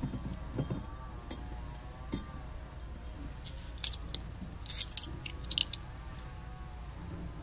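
Corkscrew worked against a wine bottle's neck: light scraping as its blade cuts the foil capsule, then a cluster of sharp metallic clicks in the second half.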